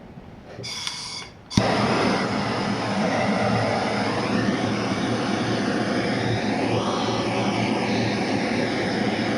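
Heat gun switched on about a second and a half in, then running steadily with a loud fan whir, warming the nitro engine's case to free a stuck cylinder sleeve.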